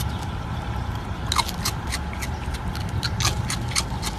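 Dry cereal rings clicking and crackling as a raccoon's paws pick through them in an open hand, a quick irregular run of small sharp clicks starting about a second in, over a steady low rumble.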